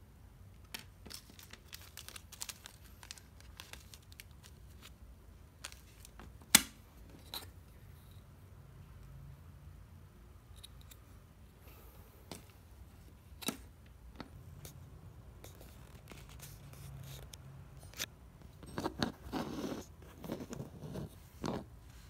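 Handling noise from small electronic parts and their plastic zip bags on a cutting mat: scattered clicks and light taps, one sharp click about six and a half seconds in, and a run of rustling near the end.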